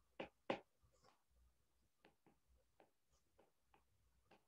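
Faint taps and ticks of a stylus on a tablet's glass screen during handwriting: two sharper taps in the first second, then softer scattered ticks.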